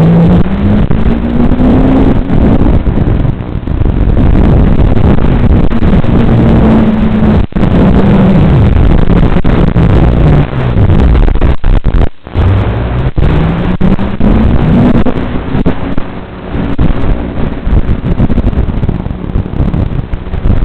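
An engine running under changing load: its pitch climbs over about two seconds, holds steady, drops away around the middle, then climbs again.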